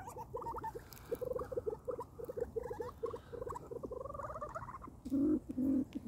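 A pheasant giving a quick run of soft clucking notes, several a second, with a few higher rising chirps among them. Near the end, louder and lower calls start, repeated about twice a second.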